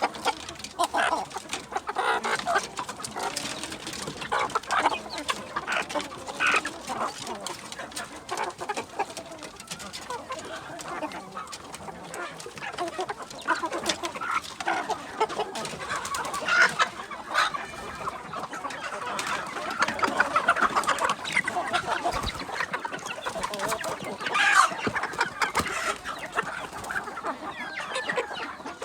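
A flock of kampung chickens crossed with Bangkok gamefowl, clucking and calling continuously with many overlapping short calls.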